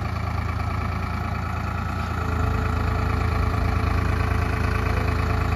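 Sonalika DI 60 tractor's diesel engine running at low revs, getting somewhat louder about two seconds in.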